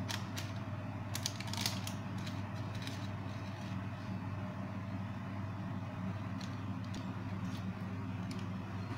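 A steady low hum throughout, with light clicks and taps from a silicone pastry brush and plastic bowl as beaten egg is brushed over puff pastry, a cluster in the first two seconds and a few more near the end.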